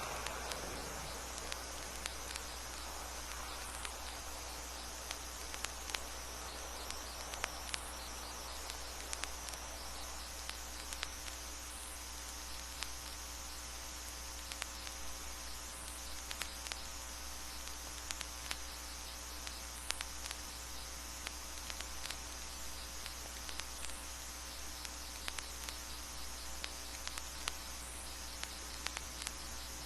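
Quiet vinyl surface noise: steady hiss and mains hum with scattered crackles and clicks from the record, after a louder sound fades out at the very start.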